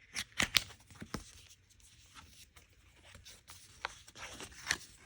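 Plastic photocard pack wrappers crinkling and tearing under the hands, with a cluster of sharp crackles in the first second and two more near the end.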